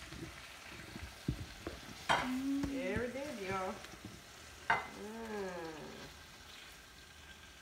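Tongs clicking and scraping against a ridged grill pan as cooked shrimp are lifted and tipped out onto a plate. Two sharp knocks, about two and five seconds in, are each followed by a brief wavering pitched sound.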